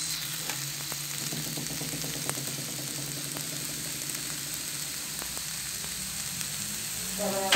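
Semolina halwa sizzling and crackling in its fat in the pan as it is stirred; the fat has separated out, the sign that it is fully roasted and ready.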